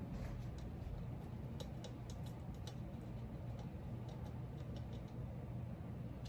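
Small irregular clicks and ticks of a screw being turned in by hand, over a steady low hum.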